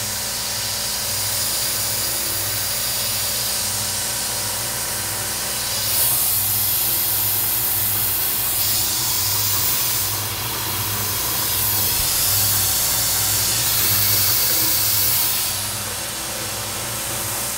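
Tormach 440 CNC mill running a small end mill around a hole in hardened S7 tool steel, under the steady hiss of a Fog Buster mist coolant spray, with a low hum that pulses evenly. From about six seconds in the hiss grows louder in several surges of a couple of seconds each, easing near the end.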